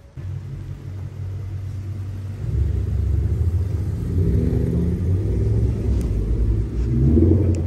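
Exhaust of a Lexus LS460's 4.6-litre V8 through a one-off exhaust built from the mid-pipe back, a deep low rumble as the car drives past and away. It grows louder about two and a half seconds in and swells again near the end. The sound is heard inside a parking garage.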